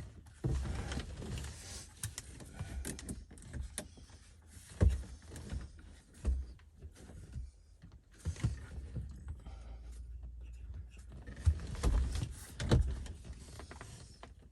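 A car radio unit being worked out of its dashboard opening: irregular plastic clicks, rattles and scraping as it is handled, with several sharper knocks about five seconds in and again near the end.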